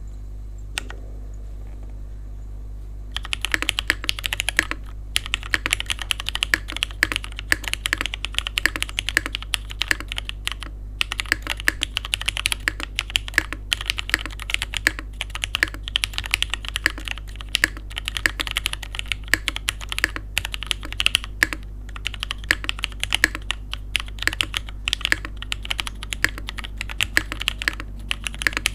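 Typing on a Daring Run DR-70F gasket-mount mechanical keyboard with a polycarbonate plate, lubed and filmed Cherry MX Black linear switches, and GMK keycaps. A few separate key taps give way, about three seconds in, to fast continuous typing. A low steady hum lies under it.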